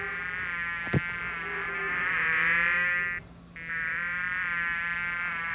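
Bee buzzing, a steady drone in two long stretches with a short break a little past three seconds in. A brief click about a second in.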